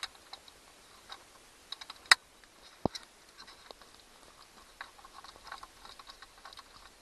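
Light scattered clicks and taps of a screwdriver working screws out of a small plastic clock housing, with one sharp click about two seconds in.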